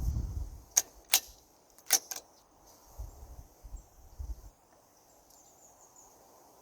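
Bolt of a single-shot .22 rifle being worked after a shot: four sharp metallic clicks close together about a second in, then a few low rumbles of handling noise.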